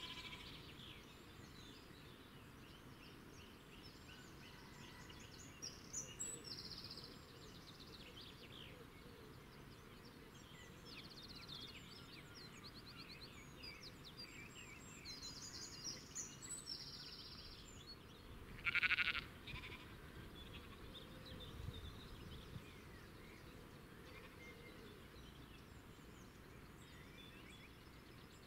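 Field ambience: small birds chirping and twittering on and off over a steady low background noise, with one short, louder bleat-like animal call about two-thirds of the way through.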